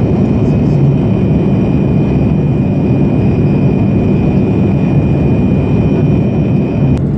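Loud, steady cabin noise of a Boeing 787 Dreamliner airliner in cruise: an even engine and airflow rumble. A thin steady high tone sits above it and cuts off just before the end.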